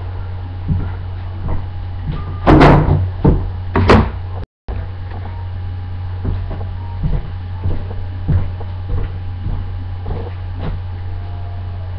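Kitchen knocks and clatter from someone handling things, several loud ones between about two and a half and four seconds in, then lighter knocks now and then, over a steady low electrical hum.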